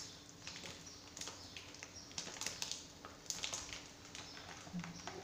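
Light, irregular clicks and taps of a metal spoon against a plastic mixing bowl as powder is spooned in, with a few faint high chirps now and then.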